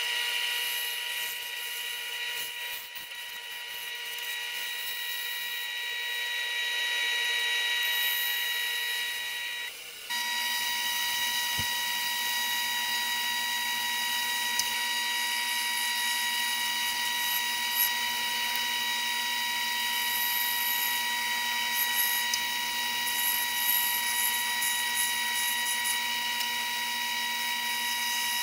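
Bandsaw running and cutting through thick wood: a steady high whine from the saw with the hiss of the blade in the wood. It dips and breaks off briefly about ten seconds in, then carries on the same.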